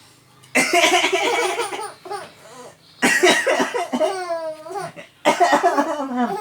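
A man coughing three times, each cough followed at once by a baby's laughter in pulsing chuckles, the middle laugh with a long squealing rise and fall. The man puts the cough down to a sore throat.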